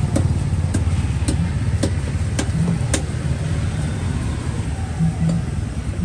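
Steady low engine rumble, like a motor vehicle idling, with sharp clicks about twice a second over the first few seconds and a few more later.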